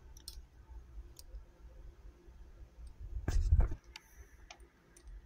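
HPC key punch machine cutting a GM key blank: a few light mechanical clicks as it is set, then a heavier double thunk of the punch stroke about three seconds in, followed by more small clicks.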